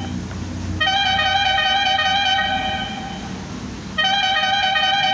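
Electric telolet horn, an Arduino-driven module playing through an amplifier instead of compressed air, sounding a brassy multi-note horn tune: a note ends right at the start, a long note comes in about a second in and holds for about two seconds, and another begins about four seconds in.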